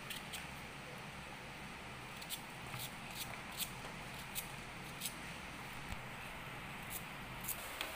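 Knife cutting raw elephant foot yam held in the hand: a scattering of faint, crisp, irregular clicks as the blade cuts through, over a steady low hum.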